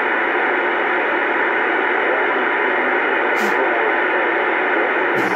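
Bearcat CB radio receiving on AM channel 28: steady static hiss with faint, garbled voices buried in the noise. A short sharp click about three and a half seconds in.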